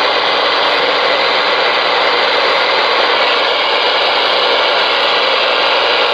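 Steady radio static hiss from a Ranger RCI-2970N4 ten-meter radio's speaker, with the receiver open between transmissions during on-air radio checks.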